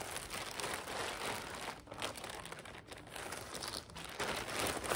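Clear plastic packaging bag crinkling as it is handled, in irregular rustles that grow a little louder near the end.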